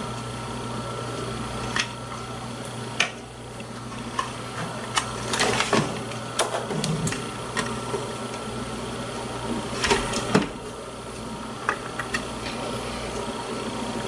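Irregular small clicks and taps of plastic casing parts and a metal spudger as a GPS unit is pried apart and its display piece handled, with a denser clatter about halfway through and again around ten seconds in, over a steady low hum.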